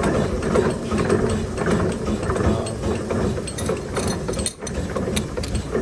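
Milling machine running while cutting the teeth of a worm gear: a continuous rattling clatter of gears with rapid fine ticking, briefly dipping in loudness about three-quarters of the way through.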